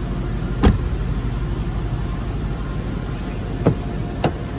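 Sharp clicks and knocks from handling a 2021 Range Rover's door: one loud one about half a second in and two more near the end, over a steady low rumble.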